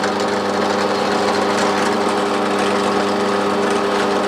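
Parkside bench drill press running at a steady speed with a Forstner bit in the chuck: an even motor hum.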